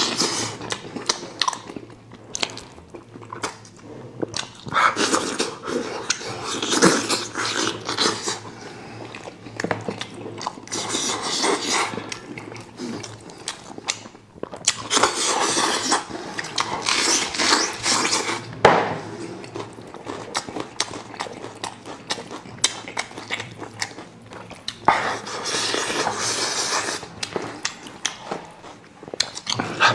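Close-miked eating of a spicy sauced sheep's head by hand: wet sucking and slurping at the meat and fingers, with chewing, coming in repeated bursts several seconds long.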